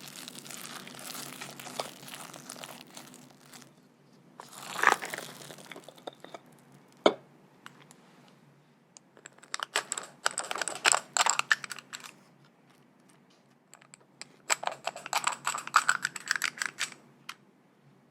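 Crinkling and crackling handling sounds in a kitchen, with a thump about five seconds in and two later bursts of rapid crackly ticking.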